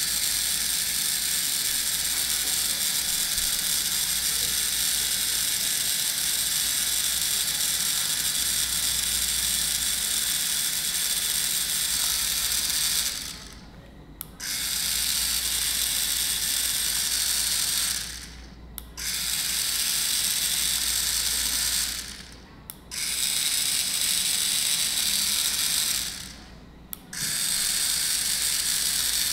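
3Doodler 3D printing pen's motor and gear drive whirring as it pushes plastic filament through the heated nozzle. It stops for about a second four times in the second half, then starts again.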